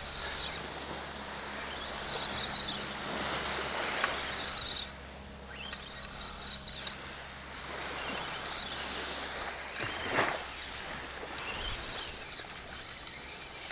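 Small waves washing up a sandy beach, a steady hiss of surf, with faint high chirping over it. A single brief sharp sound stands out about ten seconds in.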